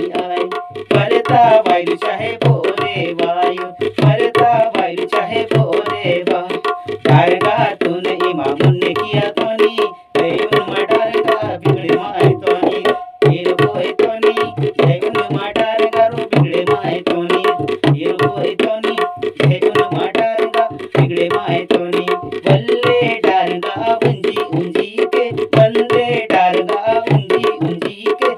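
Maharashtrian dholak, the two-headed barrel drum used in lavani, played by hand in a quick, steady rhythm with regular deep bass strokes, under a man singing a Gondi folk song.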